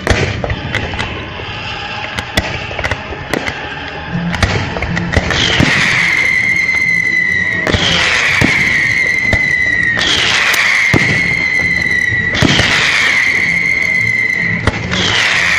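Aerial fireworks shells bursting with sharp bangs and crackle over accompanying show music. From about a third of the way in, a high note slides down and holds, repeating about every two and a half seconds.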